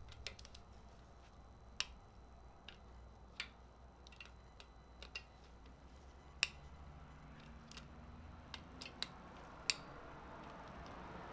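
Faint, scattered sharp metallic clicks, about a dozen at uneven spacing, from a ratchet wrench on a long extension being worked on a fastener inside a bare engine block.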